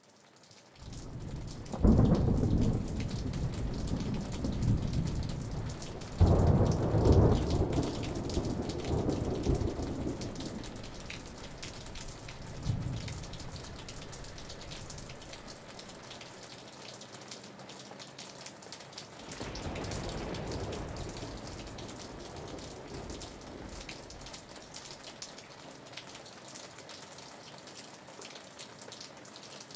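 Steady rain with rolls of thunder: two loud rumbles in the first few seconds, then weaker rolls later, fading back to the rain.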